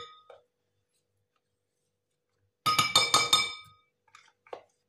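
A metal spoon clinking against a glass mixing bowl, several quick strikes about two and a half seconds in, each ringing briefly, followed by a few faint soft knocks.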